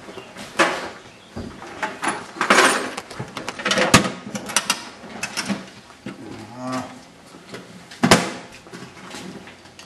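Scattered knocks and scuffling, with a low, drawn-out groaning voice about two-thirds of the way in.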